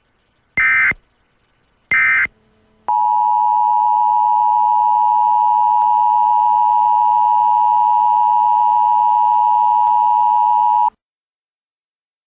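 Emergency Alert System tones: two short bursts of data tones, then the EAS attention signal, a steady two-tone electronic tone held for about eight seconds that cuts off suddenly.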